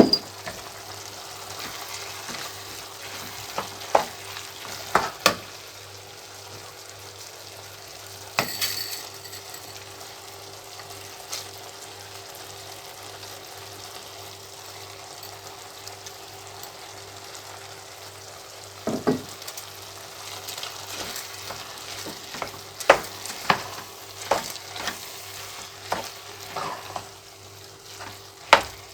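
Food sizzling steadily in a frying pan, with scattered sharp knocks and scrapes of a utensil stirring it, coming more often near the end.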